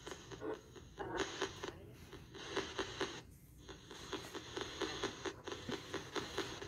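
Faint, choppy crackling static made of many short clicks a second, with a brief lull about three and a half seconds in.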